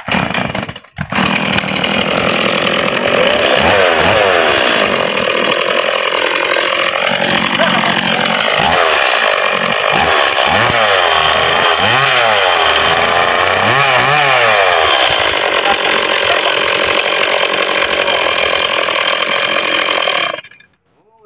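Stihl MS 170 two-stroke chainsaw starting with a brief stumble about a second in, then running and revved up and down several times before shutting off suddenly near the end.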